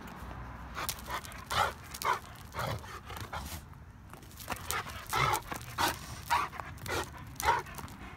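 Rottweiler panting, short breaths coming about two a second.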